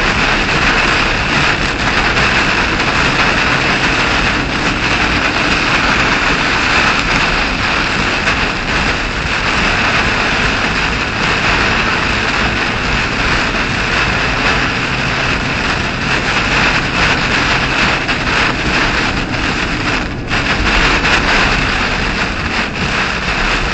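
Heavy wind-driven thunderstorm rain hitting a moving car's roof and windshield, with tyre noise on the streaming wet road, heard inside the cabin. A loud, steady hiss that dips briefly about twenty seconds in.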